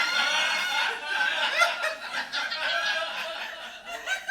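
Audience laughing together at a punchline, a dense wash of many voices that tapers off near the end.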